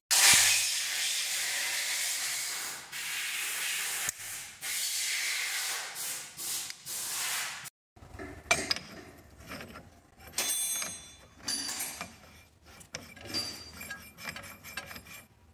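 A steady hiss for about the first eight seconds. After a cut it gives way to scattered small metal clicks and knocks as a collet is handled and pushed into the nose of a machine spindle.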